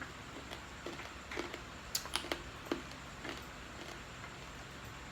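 Eating sounds: soft, irregular mouth clicks and smacks of someone chewing food. They are spaced out, mostly in the first three seconds.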